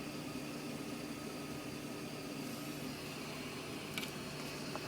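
Steady low hum and hiss of background room noise, with one faint click about four seconds in.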